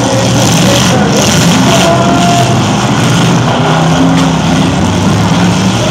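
Several demolition derby cars' engines running and revving together, loud and continuous.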